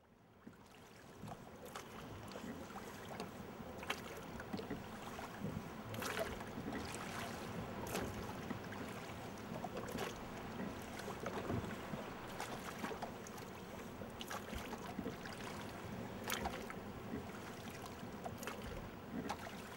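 Steady outdoor wind and water noise, fading in from silence at the start, with scattered short clicks and knocks throughout.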